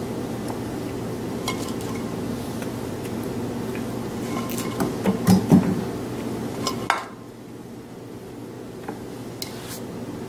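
Light knocks and clinks of cauliflower florets and a bowl against a glass baking dish, loudest around the middle. Under them a steady hum stops suddenly about seven seconds in.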